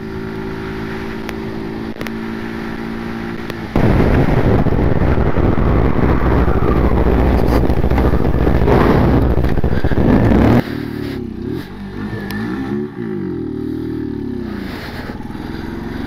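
Brixton Rayburn motorcycle engine running steadily, then drowned out for about seven seconds by loud wind roar on the camera microphone that cuts off suddenly. After that the engine's pitch falls and rises again as the bike brakes hard and slows.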